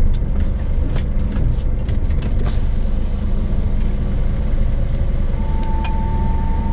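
Scania truck's diesel engine running, a steady low rumble, with a few sharp clicks in the first couple of seconds and a steady high tone that starts near the end.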